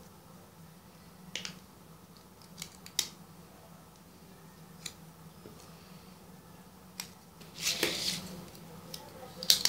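Hands handling paper and foil: scattered small clicks and crinkles, with a longer papery rustle about eight seconds in, over a faint steady low hum.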